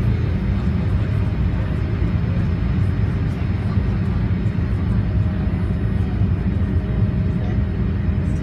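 Cabin noise of a Boeing 787 Dreamliner climbing out after take-off: a steady, loud low rumble of engines and rushing air, with a faint steady hum above it.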